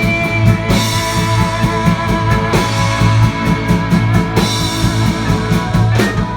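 A rock band playing live: electric guitar and bass over a drum kit keeping a steady beat.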